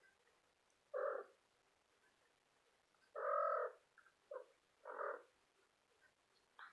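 Cat meowing: five short mews, the second longest and loudest, the last one faint.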